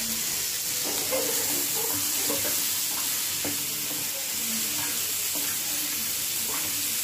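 Chopped onion, tomatoes and green chillies frying in oil in a pan with a steady sizzle, stirred with scattered light scrapes, as the tomatoes soften.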